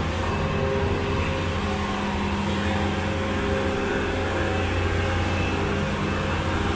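A steady low drone from a running motor or machine, holding a few constant tones without change.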